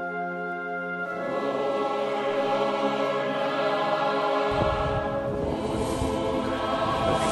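Background music with choral singing on long held chords, growing fuller about a second in. About four and a half seconds in, a low noisy rumble joins underneath the music.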